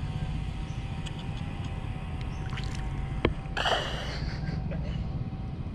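A small hooked fish being brought in. A sharp click comes about three seconds in, followed by a brief splashing rush of noise, over a steady low rumble and a faint steady hum.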